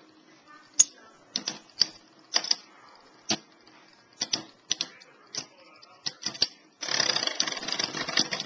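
Two metal-wheeled Beyblade spinning tops, Lightning L-Drago 100HF and Rock Aries ED145B, clashing in a plastic stadium: sharp metal clicks at irregular intervals. About seven seconds in, this turns into a dense burst of rapid rattling as the tops grind against each other.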